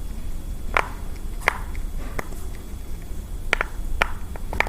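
Silicone Pop-It fidget toy's bubbles being pressed through one at a time: a series of short, sharp pops at irregular intervals, about seven in all.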